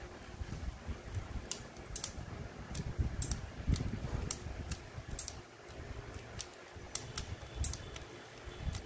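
Cassette transport mechanism of a Sony CFS-1110S running with irregular sharp clicks, about one to two a second, over a low mechanical rumble. The clicking is the mechanism still slipping now and then after a loose spring was refitted, which the repairer puts down to dried-out lubrication.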